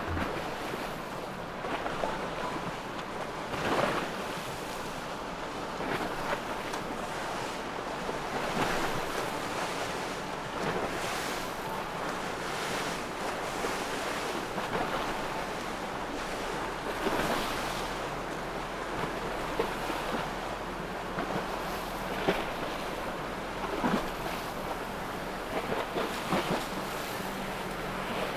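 Choppy inlet water and breaking waves, with wind buffeting the microphone in gusts every couple of seconds and a boat motor humming low underneath.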